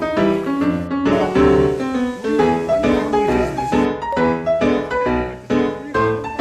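Background piano music, notes played in a steady flowing run.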